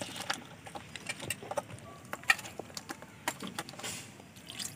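Wet hands rubbing and rinsing small bata fish in a woven bamboo basket: soft, irregular wet clicks and squelches as the fish slide against each other and the cane.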